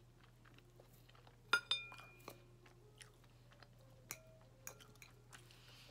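Quiet eating sounds: soft chewing and small cutlery noises, with one sharp clink of a metal fork on a plate about a second and a half in that rings briefly, and a lighter clink near the end.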